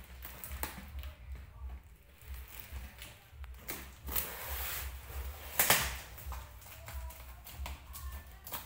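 A blade cutting and scraping through taped cardboard around the lid of a parcel tube, in irregular clicks and scrapes, with one louder rasp about five and a half seconds in.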